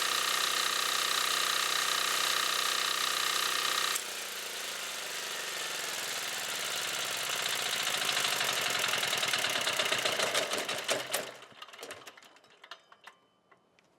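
ETQ DG7250LE diesel generator running steadily, then about four seconds in its steady note drops away and the engine knocks on ever more slowly until it stops, with a few last clicks near the end.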